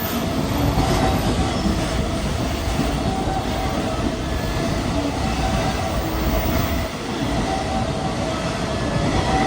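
JR Freight container train, hauled by an EF210 electric locomotive, passing through a station platform without stopping: a steady, loud rumble of wagon wheels on the rails with faint ringing tones over it.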